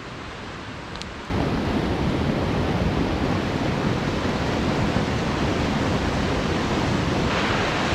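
A creek's water rushing over rocks: a steady, loud rush that starts abruptly about a second in, after a quieter outdoor background.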